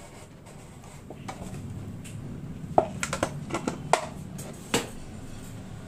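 Thin plastic soft-drink bottle clicking and crackling as it is handled and pierced with a heated knife tip: a scattered run of sharp clicks, most of them in the second half, over a faint steady low hum.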